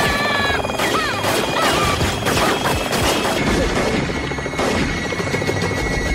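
Action-film soundtrack: a rapid run of gunshots and crashing impacts over dramatic background music. The shots thin out after about three seconds, leaving the music's steady held tones.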